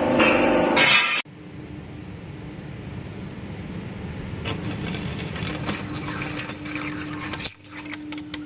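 Music cuts off about a second in and gives way to a steady workshop machine hum with one constant tone. From about halfway, many light metallic clinks and taps come in over the hum.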